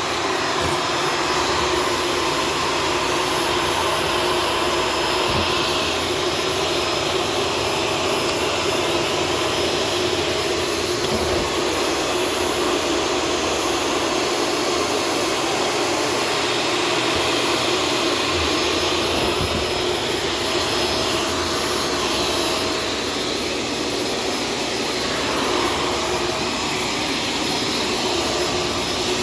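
Shark self-cleaning vacuum cleaner running steadily: a motor whine with a few fixed tones over a rush of air.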